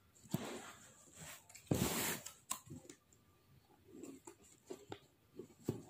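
Faint rustling and scraping of a paper banknote being pushed into a slot cut in a cardboard box, in a few short scrapes, the loudest about two seconds in, with light taps of fingers on the cardboard.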